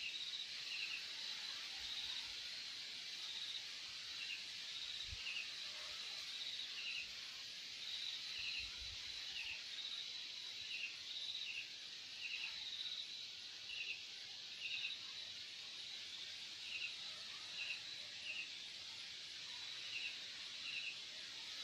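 Crickets chirping at night: short chirps of three quick pulses, about one a second, over a higher broken trill and a steady hiss.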